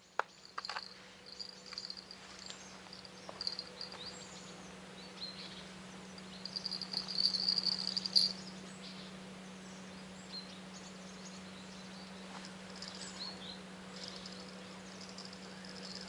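Outdoor riverside ambience: high chirping and trilling of insects and birds, loudest in a long trill about six to eight seconds in, over a steady low hum. A few sharp clicks come near the start.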